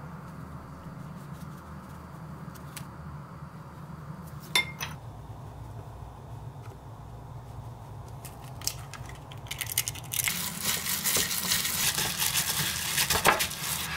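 Seasoned ground meat being kneaded by hand in a glass bowl from about ten seconds in, a dense wet crackle of the meat worked and slapped against the glass. Before that, a sharp clink against the glass bowl about four and a half seconds in, and a few lighter clicks.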